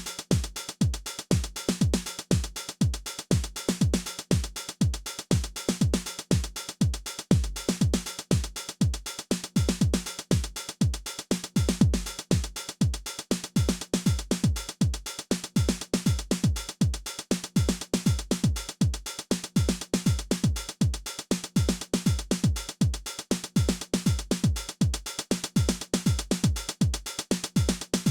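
Behringer RD-9 drum machine, a TR-909-style analog clone, playing a steady four-on-the-floor pattern: a deep kick with a falling pitch about twice a second under fast hi-hats.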